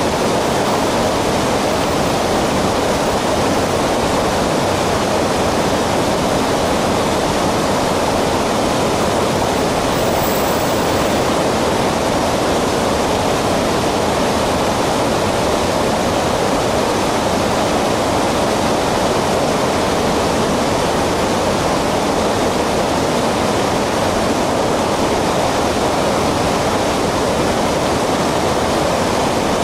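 River water rushing steadily over a shallow, stony riffle.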